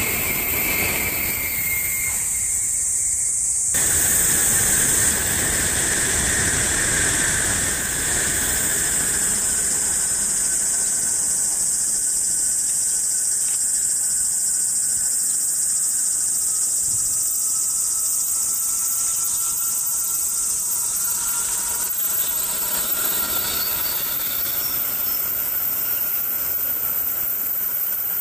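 Shinkansen trains on an elevated viaduct: the rushing noise of one passing at speed fades away over the first several seconds, a steady high hiss runs underneath, and near the end the rush of a second Shinkansen rises as it comes through.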